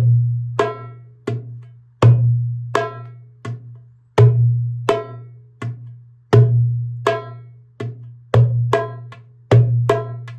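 Darbuka (goblet drum) playing a repeating three-stroke exercise: a deep ringing bass stroke, then a sharp high stroke, then a softer medium stroke, about one round every two seconds.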